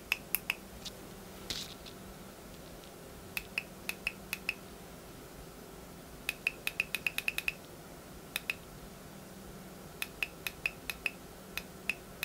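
Small tactile push-button switches under the bubble strip card of a Graflex 2.0 lightsaber clamp clicking as the card is pressed, in short runs of sharp clicks. About six seconds in comes a quick run of several presses in a row.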